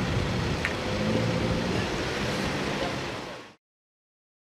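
Wind buffeting the microphone over the steady low running of vehicle engines, cutting off suddenly about three and a half seconds in.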